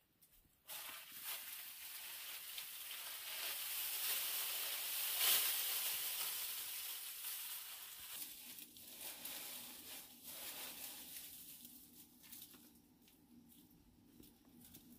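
Dry leaves rustling and crackling as they are gathered by hand from a heap. It starts suddenly about a second in, is loudest around the middle and fades out over the last few seconds.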